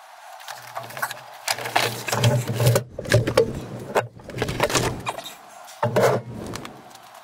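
Knocking, scraping and clattering from handling the pool filter and its PVC plumbing, a dense run of knocks busiest in the middle and again shortly before the end.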